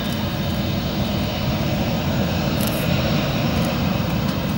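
Avro Vulcan's four Rolls-Royce Olympus turbojets running as the bomber rolls along the runway: a steady deep rumble with a hiss above it.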